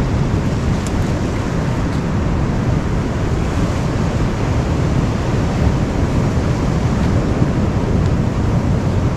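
Ocean surf washing onto a rocky beach, mixed with wind buffeting the microphone: a steady, loud rush of noise with a heavy low rumble.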